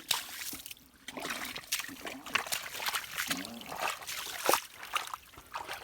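Shallow muddy water splashing and sloshing in irregular bursts as hands grope and grab for fish.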